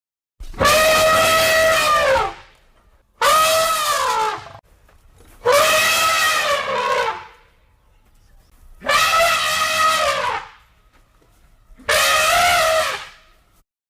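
African bush elephant trumpeting: five loud, brassy trumpet calls in a row, each about one and a half to two seconds long, rising slightly and then falling away in pitch at the end.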